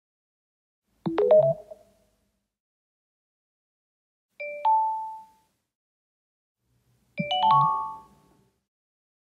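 Three short electronic charging chimes from a Samsung Galaxy phone running One UI 4, each played as a charger is connected. The first, about a second in, is the Galaxy theme's super fast charging sound. Near the middle comes the Calm theme's fast charging chime of two notes, and near the end the Calm theme's super fast charging chime of several stepped notes. A low vibration buzz sits under the first and last.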